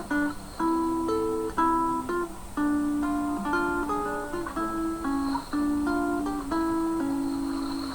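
Acoustic guitar playing slow, gentle relaxation music: plucked notes and chords, each ringing out and fading before the next.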